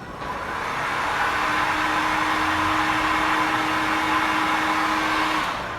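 Hot-air heater blowing steadily, force-drying a coat of anti-rust treatment on a car paint chip. It runs with a faint steady hum underneath and fades away near the end.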